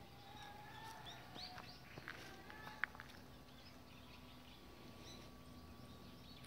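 Faint bird chirps and calls outdoors, short rising and falling notes over the first few seconds, with a few soft ticks and one sharp click just before the midpoint.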